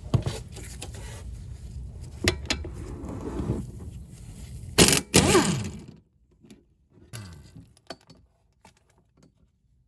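Hand tools on the brake caliper bolts of a car's front wheel: metal clicks and clanks, with a loud cluster of sharp knocks and a brief squeak about five seconds in. After that only a few light metallic ticks remain.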